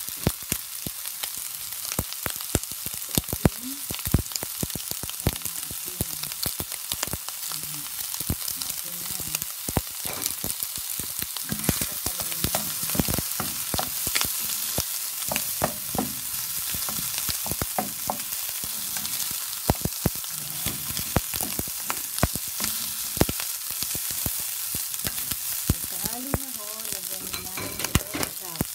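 Fried rice with diced bacon and onion sizzling in a nonstick frying pan as it is stirred, a steady hiss broken by frequent sharp clicks and scrapes of the utensil against the pan.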